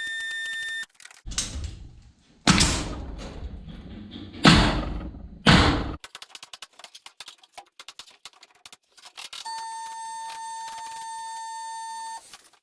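Several loud knocks with scraping and rustling from about one to six seconds in, then a power tool motor whining steadily for nearly three seconds near the end, as panels are handled and fastened overhead.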